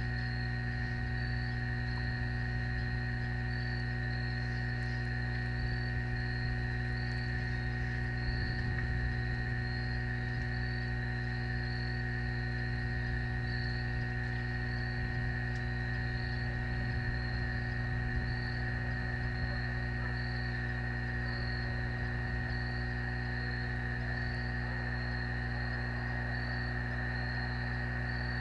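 Steady electrical hum and buzz from the nest camera's audio feed, with a faint high chirp pulsing about once a second.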